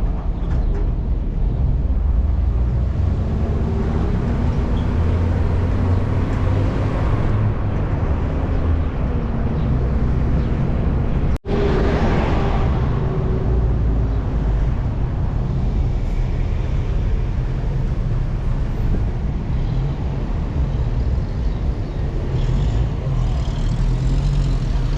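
A car driving: steady engine and road rumble, broken by a momentary gap about eleven seconds in.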